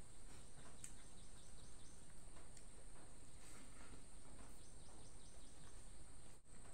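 Quiet chewing and small wet mouth clicks from a man eating chicken with his hand, over a steady high-pitched hiss.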